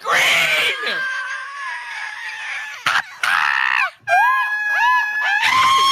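People screaming in high voices: long held screams, with a run of short rising-and-falling yelps in the middle.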